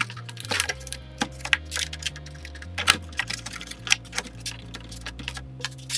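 Irregular clicks, taps and rustles of hands handling a LiPo battery and its wires, pushing them into the 3D-printed LW-PLA plastic fuselage of a model airplane, with the sharpest click a little before 3 s, over soft background music.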